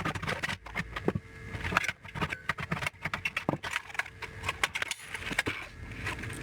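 Irregular clicks, taps and light metallic clatter of screws, plastic panels and parts being handled while an old TV/VCR combo is taken apart.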